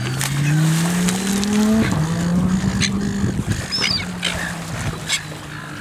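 A boat's outboard engine runs, its pitch rising over the first two seconds, then dropping and holding steady. Over it come scattered sharp splashes as a seal thrashes a big fish at the surface, and a gull calls once about four seconds in.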